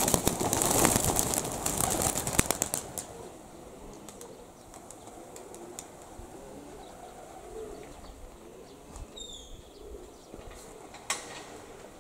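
A flock of young Budapest highflyer pigeons taking off together from an aviary, their wings clattering loudly for the first three seconds, then the flapping fades as the flock climbs away. A sharp knock about eleven seconds in.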